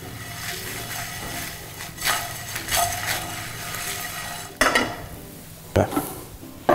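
Whole spices and garlic cloves rattling and scraping in a nonstick frying pan as they are tossed and dry-roasted, with a faint sizzle and a few sharp knocks of the pan.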